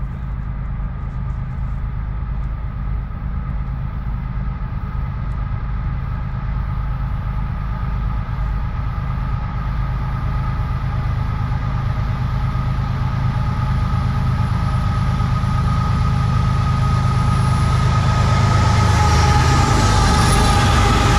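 An eastbound CSX freight train hauled by two GE ES44AC-H diesel-electric locomotives approaching, a deep diesel rumble with a steady high whine over it. It grows gradually louder until the lead locomotive is passing close by near the end.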